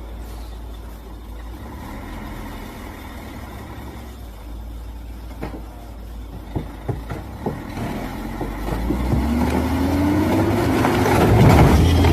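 Heavy logging truck's diesel engine running at a low rumble, with a few sharp knocks about halfway through, then revving up, rising in pitch and growing louder near the end.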